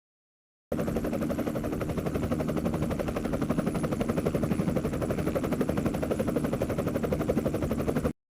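Helicopter rotor sound effect: a steady, rapid chopping that starts abruptly under a second in and cuts off suddenly near the end.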